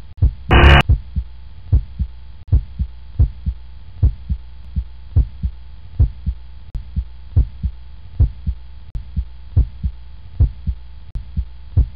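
Heartbeat sound effect: low double thumps (lub-dub) repeating at a steady pace over a faint hum. Under a second in, a short loud noisy burst cuts across it.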